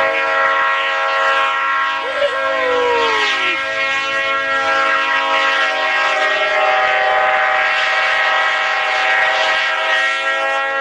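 Diesel locomotive's multi-chime air horn held in one long, steady blast, a chord of several tones.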